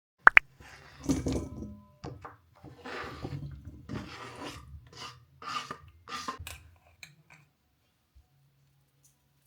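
A sharp double clink of hard objects, then several seconds of irregular clattering, rubbing and rustling as things are handled, stopping about seven and a half seconds in.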